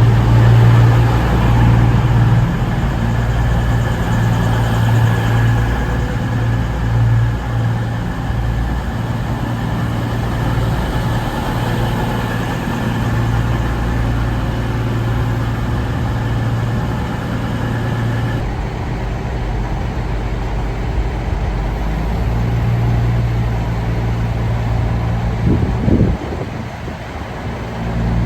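A train running steadily with a strong low hum, and a thin high whine over it that cuts off suddenly about two-thirds of the way through.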